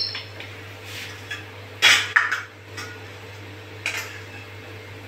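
A few clinks and knocks of kitchen dishes and utensils, the loudest about two seconds in and another near four seconds, over a low steady hum.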